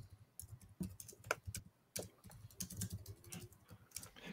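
Faint typing on a computer keyboard: irregular clicks of keys.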